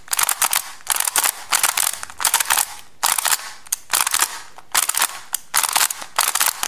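Plastic Skewb puzzle being turned fast with finger tricks, sledgehammer moves done over and over: its pieces click and clack in short rapid runs, about two a second.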